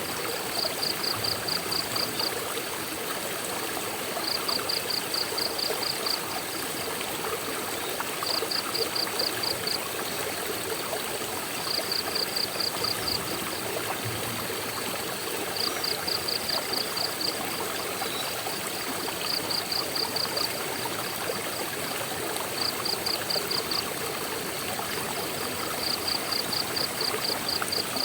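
Steady rushing of flowing water from a waterfall or stream. Over it, a high, rapid chirping trill of about ten quick pulses sounds every three to four seconds.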